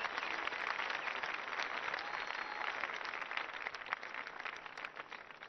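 Large congregation applauding: dense, steady clapping from many hands.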